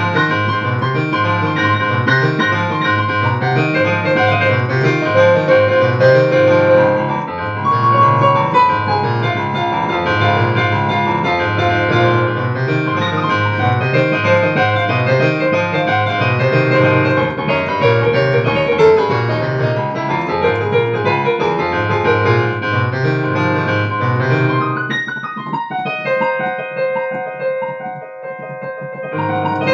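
Piano music with a steady, repeating bass line; the bass drops out for a few seconds near the end, leaving held higher notes.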